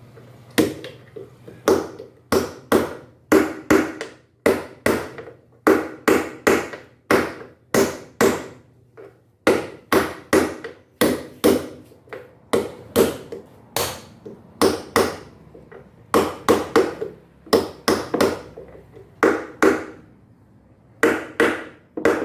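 Hammer blows on a bearing driver, knocking a new drum bearing into the rear tub housing of a Samsung front-loading washing machine: sharp ringing metal strikes about two a second, with short pauses partway through and near the end.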